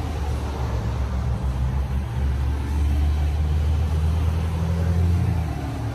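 Road traffic on a big street: a low, steady engine drone that grows louder about two seconds in as a vehicle passes and drops back near the end.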